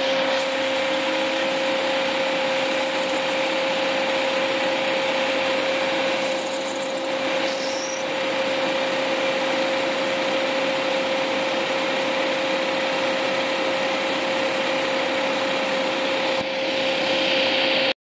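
Jeep engine running at a steady raised idle of about 1200 RPM with the hood open, an even whooshing whir with a constant hum, while air is being burped from the cooling system through a funnel.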